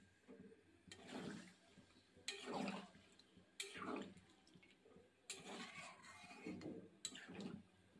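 Metal spatula stirring a wet chicken and potato curry in a kadai: faint, repeated sloshing and scraping strokes, about one every second and a half.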